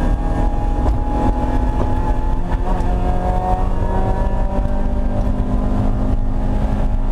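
Mazda Miata race car's four-cylinder engine under hard driving, heard loud from inside the stripped cockpit. The engine note changes about two and a half seconds in, then climbs steadily.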